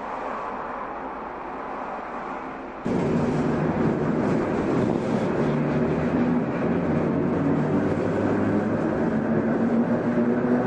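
Shin-Keisei car 252, an old nose-suspended (tsurikake) motor electric train, running: the rumble of the train with the pitched whine of its traction motors and gears over it. A quieter hum gives way to the louder running sound suddenly, about three seconds in.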